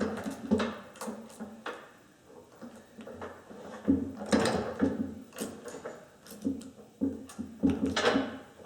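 Irregular knocks, clicks and scrapes as a chainsaw is taken apart by hand on a bench, its parts and tools being handled and set down.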